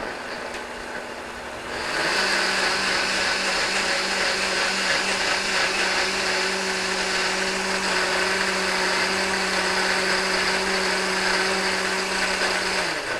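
Electric countertop blender running, puréeing spinach, avocado and water into a smooth green drink. Its steady motor hum gets louder and fuller about two seconds in, then stops just before the end.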